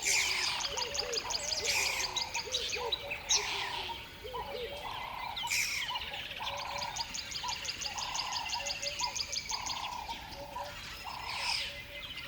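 Several birds chirping and singing at once: a fast, high trill that comes in repeated runs, sweeping whistled notes, and lower repeated call notes in the first few seconds.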